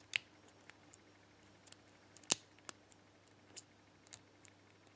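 A lock pick and tension tool clicking inside a PAC pin-tumbler padlock as its pins are worked: small irregular clicks, with one louder click a little past two seconds in.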